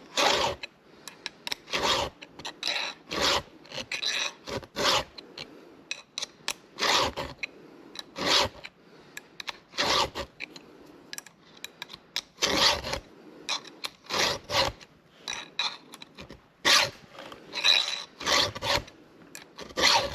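Hand file rasping across the cutters of the Echo CS-490's saw chain in a long series of short strokes, roughly one or two a second with brief pauses: the chain being sharpened.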